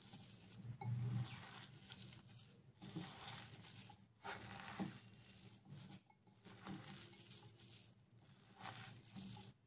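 Faint, irregular sounds of a bare hand mixing and squeezing raw minced chicken with chopped onion, spices and cornflour in a bowl.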